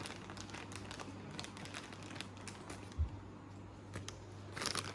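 Packaging crinkling and rustling in a run of small crackles as it is handled and worked open with scissors, with a soft thump about three seconds in.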